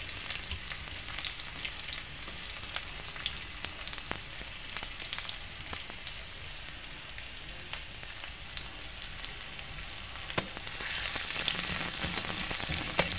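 Sliced onions sizzling and crackling in hot oil in a metal kadhai. About ten seconds in, a metal spatula starts stirring them, with a sharp click, and the frying gets louder.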